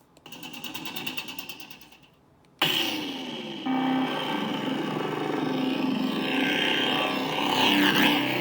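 Lightsaber sound font played by a Proffieboard 2.2 through the hilt's 28mm speaker: a short pulsing crackle, then a sudden ignition about two and a half seconds in with a falling sweep, settling into a steady hum with a surging swing sound near the end. The hum start does not quite line up with the ignition on this font.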